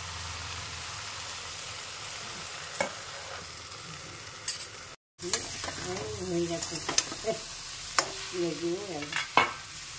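Vegetables sizzling in a covered aluminium kadai. About halfway through, the sound cuts out for a moment, then a spatula stirs the frying vegetables, scraping along the pan with a few sharp knocks against its side.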